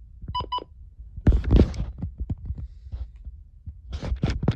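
Two quick electronic beeps from a weather alert radio about half a second in, then handling noise: rustling with low thumps, loudest around a second and a half in and again near the end.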